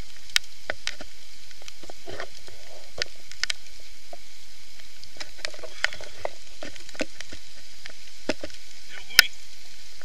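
Aluminized emergency blanket worn as a rain cape crackling close to the microphone as the wearer moves, with scattered sharp ticks over a steady hiss.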